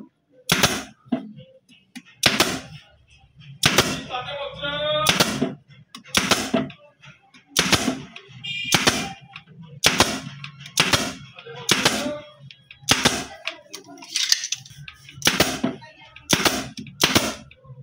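Pneumatic upholstery staple gun firing shot after shot, about one sharp crack a second, driving staples through fabric into a wooden chair seat frame.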